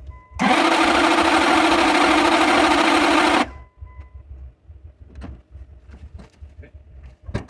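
Starter cranking the 1998 Dodge Ram 1500's 5.9 V8 for about three seconds. The engine does not catch, and the cranking cuts off suddenly. It won't fire because a small ignition sensor was left unplugged after the new distributor cap went on. A faint electronic chime beeps just before and after the cranking.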